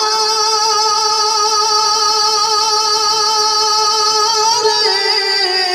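Male voice singing a naat, holding one long note with a slight waver, then stepping down to a lower note near the end.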